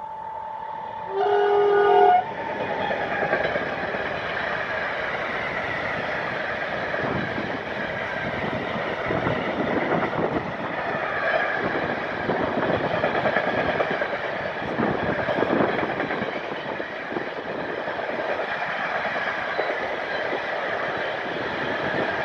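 Electric freight locomotive, a Siemens Vectron (111Ed), sounds one horn blast of about a second as it comes alongside, over a steady whine from its drive that fades as it passes. Then the container wagons roll past close by in a steady rumble with wheel clatter.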